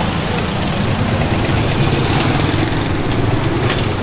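Steady low motor rumble, with a few faint clicks near the end.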